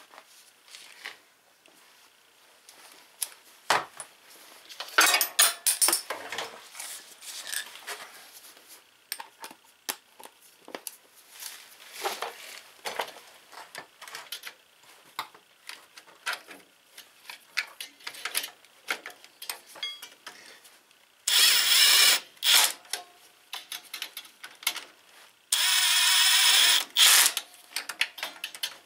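Hand tools and metal parts clinking and rattling as they are handled, then a cordless drill driving a socket on a long extension at a garden tractor's rear axle, running twice in steady bursts of about two seconds each, near the end.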